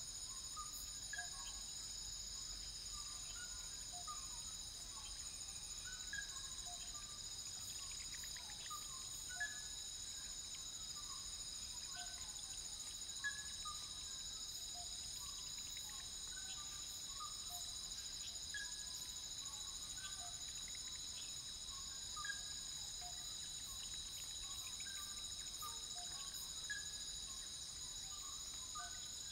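Night-time forest insect chorus: a steady, high, layered trilling of crickets, with many short chirping calls from other animals scattered through it and an occasional faint tick.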